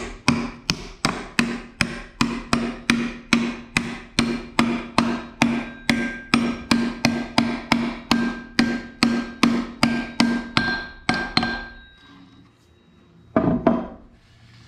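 Hammer striking metal in a steady run of blows, about three a second, each with a short metallic ring. The blows stop about twelve seconds in, and one heavier knock follows near the end.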